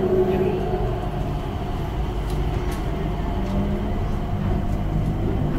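Changi Airport Skytrain, a rubber-tyred automated people mover, running along its guideway, heard inside the car: a steady hum with a few held tones.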